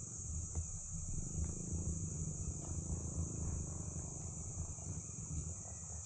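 Steady high-pitched chorus of insects droning without a break, with a low, uneven rumble underneath.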